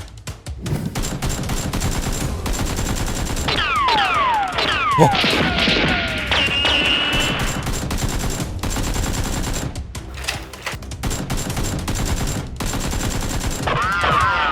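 Rapid gunfire, shots fired in quick succession like automatic-weapon bursts, with several falling whistles about four seconds in.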